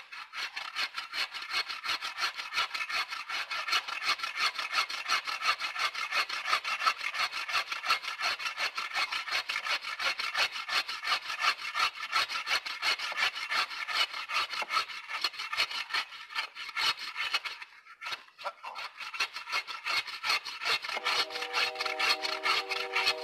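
Hand bucksaw (Agawa Canyon Boreal21 folding saw) cutting through a downed log with fast, even rasping strokes. The sawing stops briefly about three quarters of the way through, then resumes. Near the end a steady humming tone joins it.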